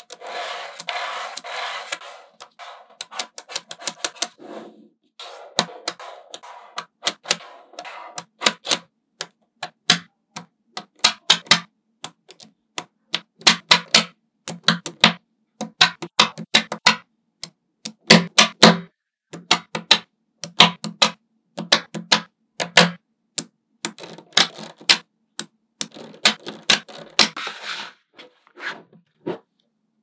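Small magnetic balls clicking and snapping together in quick, irregular clusters as they are set in place, with short stretches of rattling as loose balls roll against each other.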